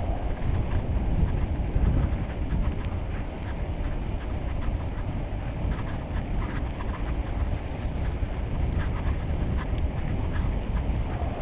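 Wind buffeting an action camera's microphone while riding a road bicycle, with tyre noise from the wet asphalt and scattered small clicks and rattles from the bike.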